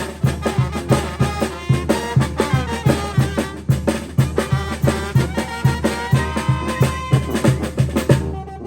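Oaxacan banda, a brass and wind band, playing: brass lines over a steady quick drum beat. Near the end the drums stop and the sound thins suddenly.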